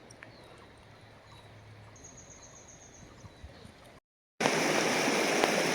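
Faint outdoor quiet with a few faint bird chirps. After a sudden cut about four seconds in, a loud steady rush of river water takes over.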